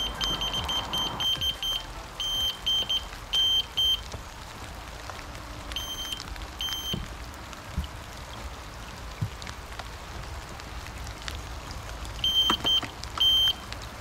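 Electronic carp bite alarm beeping in short, even, high single tones as a fish takes line, signalling a bite. A quick run of beeps comes first, then scattered pairs, and another quick cluster near the end. Steady rain hiss runs underneath.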